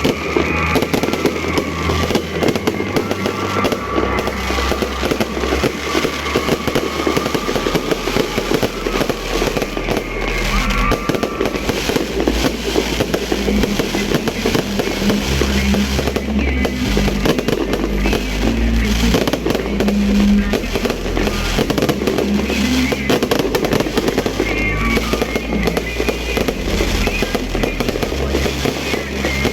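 New Year fireworks going off in a dense, continuous barrage of rapid crackles and bangs, with music playing underneath.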